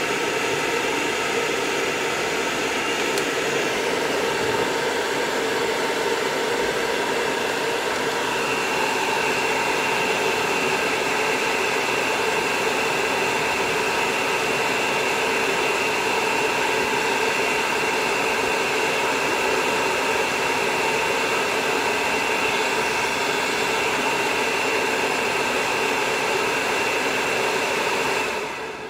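Hair dryer blowing steadily, a noisy rush with a whining tone over it, the tone shifting slightly in pitch about eight seconds in. It cuts off just before the end.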